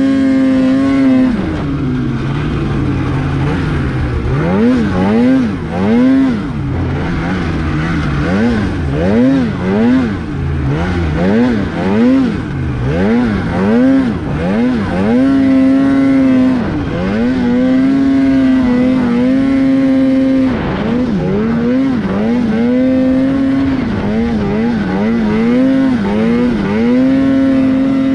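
Snowmobile engine revving in deep powder. The throttle is blipped up and down about once a second for several seconds, then held steady at high revs with a few quick dips.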